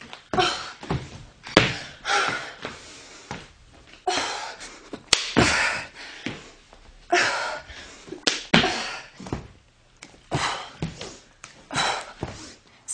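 Hands and feet thudding on a hardwood floor during push-ups and quick side-to-side steps and jumps, with hard, noisy exertion breaths alongside the landings, about one or two a second.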